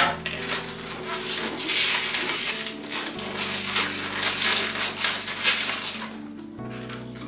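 Latex balloons rubbing and crinkling under the hands as a balloon sculpture is squeezed and adjusted, over background music whose chords change twice.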